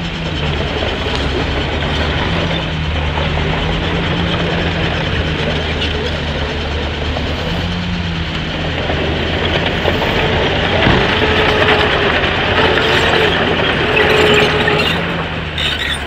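Heavy earthmoving machine's diesel engine running steadily, with mechanical clatter. It works harder and gets louder in the second half.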